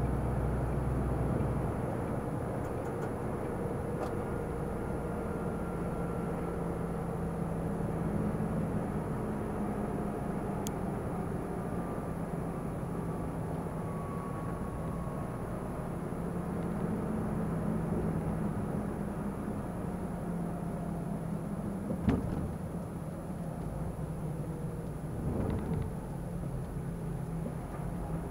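A truck's diesel engine running steadily at cruising speed under road and tyre noise, heard inside the cab. One sharp click about three quarters of the way through.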